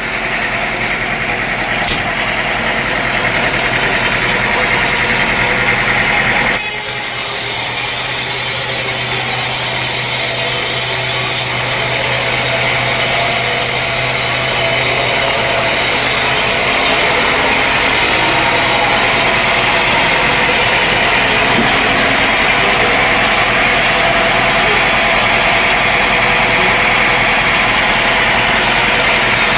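Sawmill machinery running steadily with an engine-like hum and a steady hiss, changing abruptly about six seconds in.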